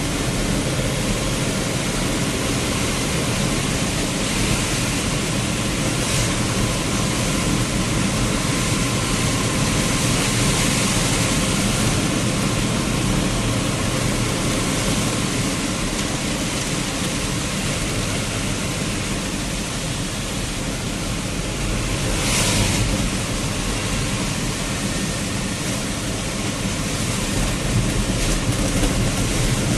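Steady rushing noise of a vehicle riding through heavy rain: wind, rain and tyres on a wet road blend into one dense hiss, with a brief louder surge about 22 seconds in.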